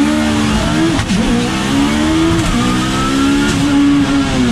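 Twin-turbo Toyota MR2's engine heard from inside the cabin, running steadily as the car is driven at low speed. Its pitch wanders up and down and dips briefly about a second in and again at about two and a half seconds.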